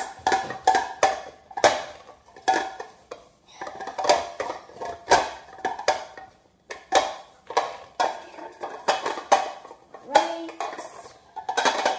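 A bundt cake pan being greased by hand: repeated rubbing, scraping and knocking, about two strokes a second, each with a short ringing note from the pan.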